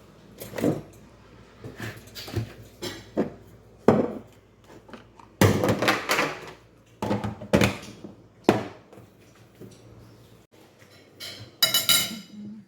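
Dishes and cutlery clattering: irregular knocks and clinks, with a ringing metallic clink near the end.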